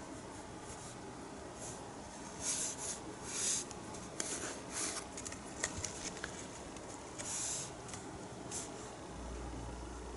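Paintbrush strokes of acrylic paint on a canvas: a few short, scratchy brushing sounds and small clicks. A low hum comes in near the end.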